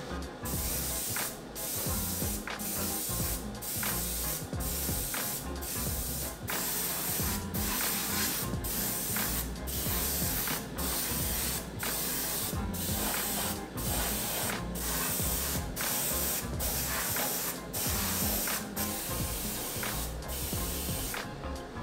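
Airbrush spraying raw lacquer, hissing in a run of short bursts each under a second long, with brief breaks between them.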